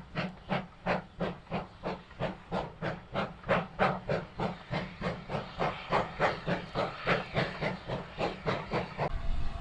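GWR 'Saint' class two-cylinder 4-6-0 steam locomotive No. 2999 working a passenger train, its exhaust beating sharply and evenly at about three beats a second. The beats stop about nine seconds in.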